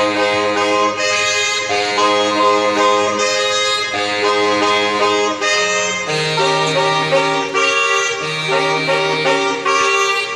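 Saxophone quartet playing slow, sustained chords in close harmony, the chords changing every second or two over held bass notes.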